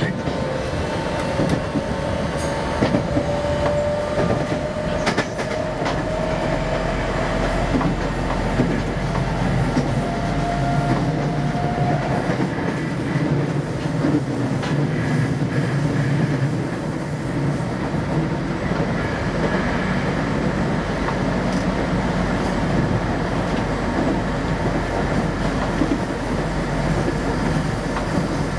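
Tokyo Metro 05 series electric train running between stations: the steady rumble of wheels on rail with rail-joint clicks, and a motor whine rising slowly in pitch that cuts off about twelve seconds in as the train goes on coasting.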